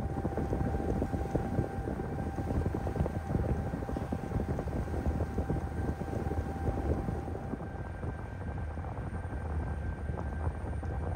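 Ferry engine drone with a steady machinery whine, one tone of which stops about two-thirds of the way through, under wind buffeting the microphone on the open deck.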